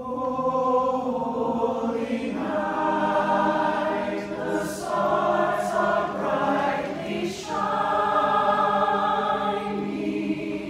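Small mixed choir of men and women singing in harmony, coming in together at once and holding long chords.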